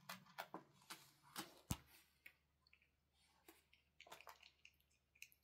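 Cat chewing and biting on a silver vine (matatabi) fruit: a quiet, irregular run of small wet clicks and crunches, the sharpest about one and a half seconds in.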